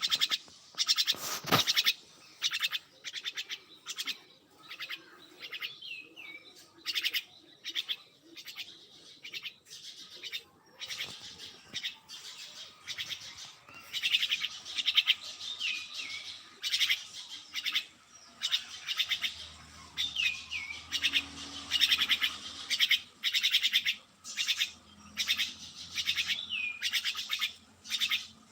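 Small birds chirping and twittering in quick repeated bursts, with short gaps between them.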